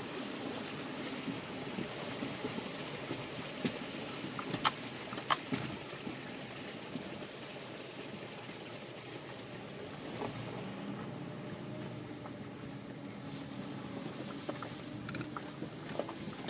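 2010 Jeep Wrangler Unlimited's 3.8-litre V6 running as it drives along a dirt trail, heard from inside the cab with steady tyre and road noise. Two sharp knocks about five seconds in, half a second apart, are the loudest sounds.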